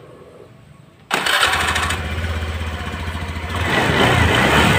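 Honda Spacy scooter engine starting about a second in and running, getting louder from about three and a half seconds in. This is a test run after its worn cooling-fan boss was clamped tight with a modified washer, to cure a rough klak-klak rattle.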